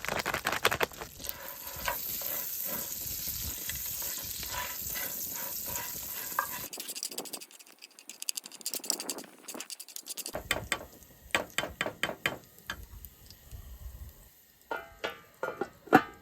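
Popcorn kernels and oil sizzling as they are stirred in a metal pot, a steady hiss with fine ticking. Later come scattered clicks and knocks of the pot and utensils being handled, with one sharp knock near the end.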